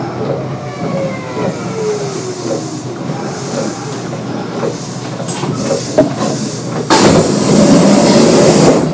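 Kintetsu 9200 series field-chopper-controlled electric train, heard on board as it brakes into a station: the motor and gear whine falls in pitch over the first few seconds, with a few clicks as it comes to a stop. About seven seconds in, a sudden loud hiss of air starts as the air-operated doors open.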